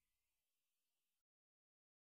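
Near silence: a very faint fading remnant that cuts to dead silence just over a second in.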